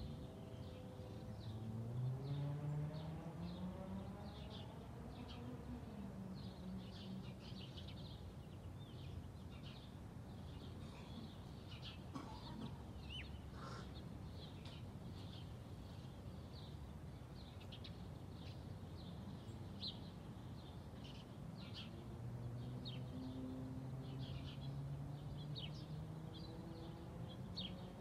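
Small birds chirping continually in short, high calls. Under them, a distant motor vehicle twice accelerates, its engine note climbing over a few seconds: once starting about a second in, and again in the last quarter.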